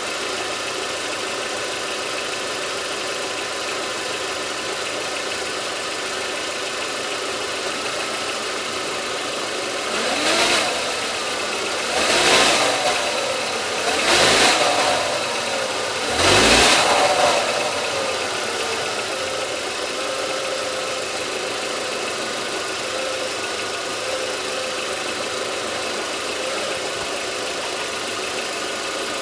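VW Passat B5's 1.8-litre turbo four-cylinder engine idling, revved briefly four times about ten to seventeen seconds in, each rev rising and falling in pitch, then settling back to idle. The engine is run against the brake to check motor mounts that the owner suspects are bad.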